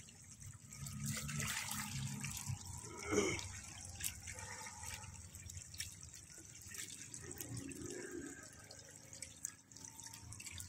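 Shallow water trickling and splashing as it runs down a split-bamboo screen into a woven basket fish trap, with scattered small splashes. A brief louder sound comes about three seconds in.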